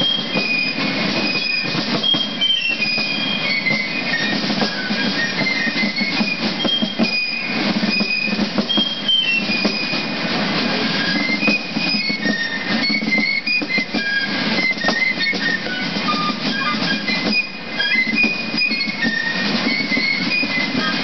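Piccolos and Basel drums of a Fasnacht clique playing a march together: a high piccolo melody of short stepping notes over steady fast drum strokes and rolls.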